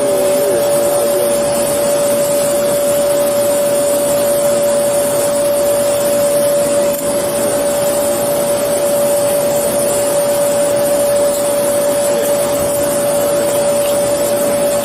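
Steady machine drone with one constant whining tone, unchanging throughout.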